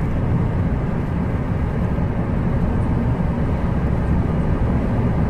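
Loud, steady low rumble of wind buffeting the microphone, cutting off abruptly at the very end.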